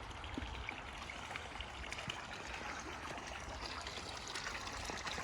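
Steady trickle and splash of water running into a garden koi pond.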